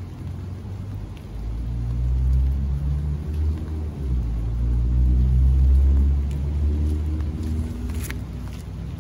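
Low rumble of a passing motor vehicle's engine, swelling to its loudest about halfway through and then easing off, with one sharp tap near the end.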